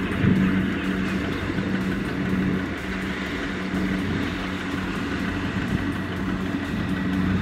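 Kubota ZT155 single-cylinder diesel engine on a walk-behind two-wheel tractor (power tiller), running steadily.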